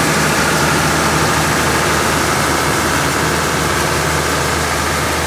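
Heavy diesel farm machine engine running steadily at constant speed, with a deep even hum and a broad mechanical rush over it.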